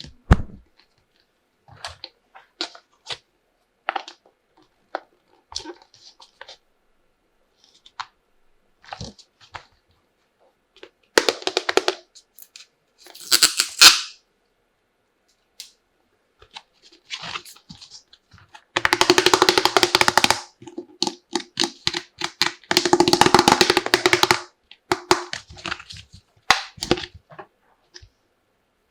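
Plastic toy kitchen pieces being handled and unpacked: scattered clicks and taps, and a rustle of packaging. Two longer stretches of rapid rattling clicks come about two-thirds of the way in.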